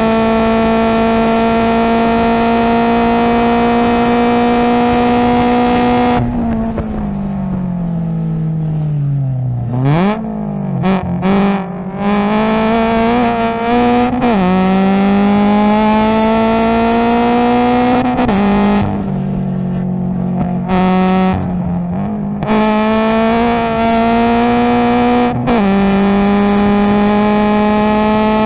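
Subaru BRZ race car's 2.0-litre flat-four, with an aftermarket header and single exhaust, heard from inside the cabin. It runs steady near the top of fifth gear, then lifts off about six seconds in, the pitch falling as the car brakes and downshifts with short rev-matching throttle blips. It then pulls hard again through the gears with quick upshifts, and eases off briefly once more in the middle.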